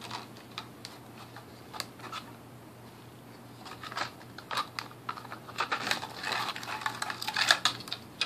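Green 0.080-inch nylon trimmer line being wound by hand onto the plastic bump spool of a Murray M2500 string trimmer: irregular small plastic clicks and the scrape of line over the spool. The clicks come more often from about halfway through.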